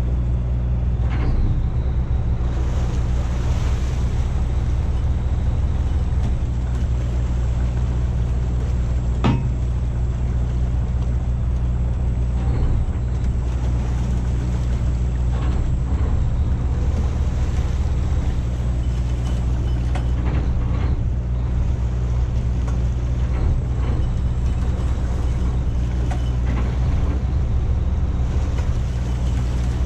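Boat engine running steadily, a constant low drone, with a single sharp knock about nine seconds in.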